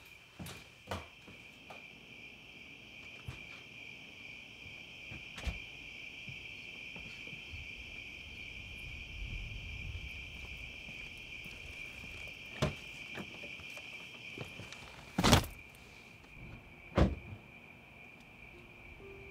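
Insects chirring in a steady high drone, with scattered light footsteps and knocks. About three-quarters through, a loud thump of a car door shutting, then a smaller knock; after it the chirring sounds duller.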